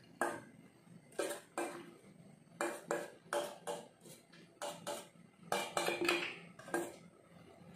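A utensil scraping and knocking against a stainless steel pot as food is scooped out of it: about a dozen short, irregular metal clinks, each ringing briefly.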